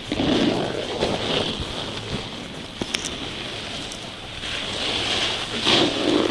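Wind rushing over the microphone and the hiss of sliding over snow on a ski slope. It eases off in the middle and picks up again near the end.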